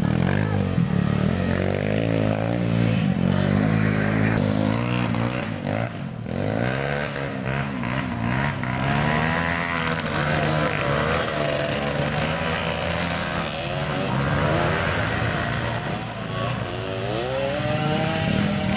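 Dirt bike engine revving hard on a muddy trail, its pitch rising and falling over and over as the rider works the throttle.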